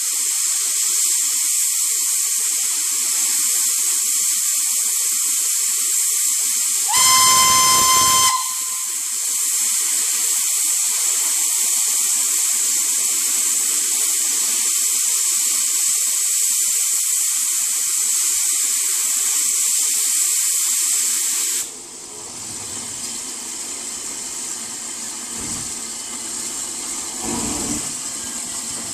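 SR S15 class steam locomotive standing with its safety valves blowing off: a loud steady hiss that stops suddenly about three-quarters of the way through, leaving a quieter hiss. About seven seconds in, a locomotive steam whistle sounds once for just over a second on a single steady pitch.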